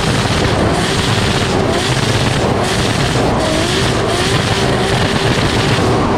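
Drift car engine running hard at high revs under sustained drifting, with tyre and wind noise over a bonnet-mounted camera; loud and steady, the hiss on top dipping briefly about once a second.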